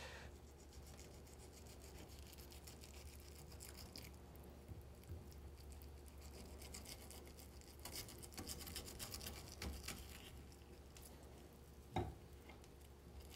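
Faint scraping and rubbing of a kitchen knife working between the skin and flesh of a sea bream fillet on a wooden cutting board as the skin is taken off. There is one short sharp sound near the end.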